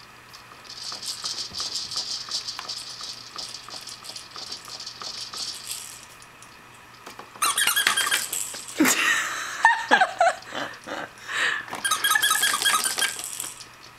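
Plastic toys on a baby's activity centre rattling and clicking: a soft, steady rattle at first, then from about halfway louder clattering mixed with short, high squeaks.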